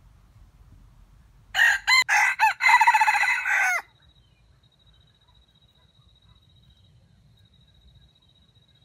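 A junglefowl rooster crows once, for about two seconds: a few short choppy notes, then a held note that drops away at the end. A faint, steady, high-pitched whine follows.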